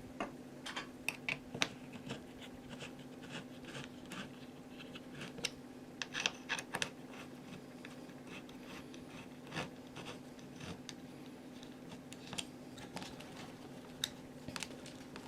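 Irregular small clicks and scratching from hand work with a screwdriver and screws on the chair's plywood, over a steady low hum.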